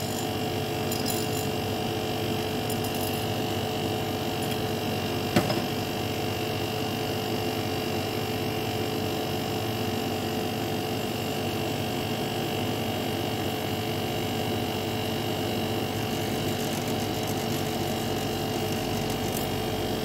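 Carrier window air conditioner running after a refrigerant top-up: a steady hum from its compressor and fan. A single sharp click about five seconds in.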